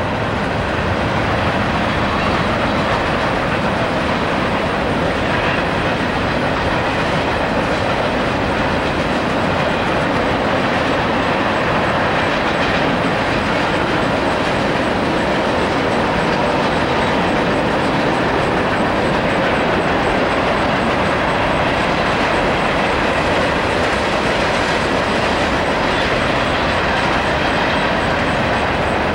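Freight cars of a mixed freight train rolling steadily past on steel rails: a continuous, even rumble of wheels on track.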